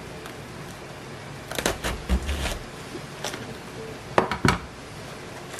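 Chef's knife cutting down through a raw head of green cabbage: a crisp crunching of the leaves about a second and a half in, ending in a low thud as the blade reaches the cutting board. Two sharp knocks follow near the end.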